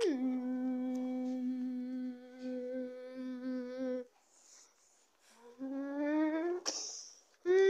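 A child humming long held notes. The first drops in pitch and then holds steady for about four seconds; after a short pause a second, shorter note rises in pitch, followed near the end by a brief hiss.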